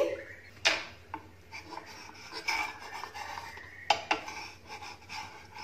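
Wooden spatula scraping and knocking against a nonstick frying pan as a cooked pancake is lifted out, with a sharp knock about a second in and two more near the end.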